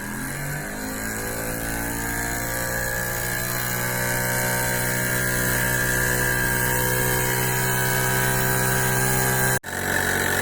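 Miniature oscillating single-cylinder steam engine running, speeding up over the first second or so and then holding a steady speed. The sound breaks off suddenly near the end and resumes with a slightly different steady tone.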